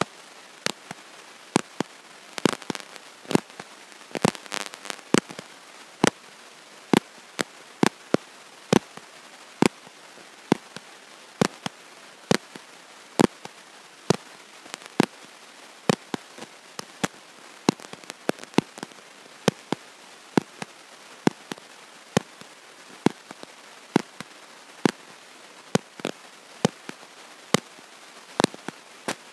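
Sharp clicks and crackles, about two a second and somewhat uneven, over a steady hiss, with a denser patch of crackling between about two and five seconds in.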